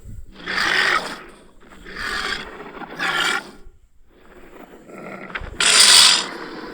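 Synthetic triceratops calls from Google's 3D animal view: four harsh, rasping growls, the last the loudest.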